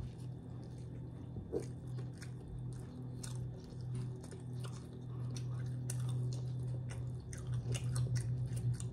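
Close-up chewing and biting of a breakfast sandwich of bread, egg and meat patty: many small wet mouth clicks and crunches, with a steady low hum underneath.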